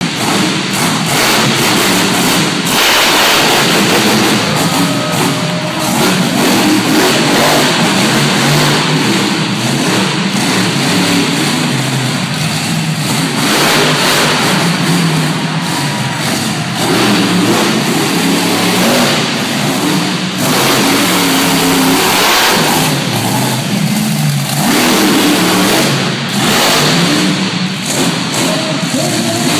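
Monster truck engine revving hard and easing off again and again, its pitch repeatedly rising and falling, with several stretches of heavy full-throttle noise.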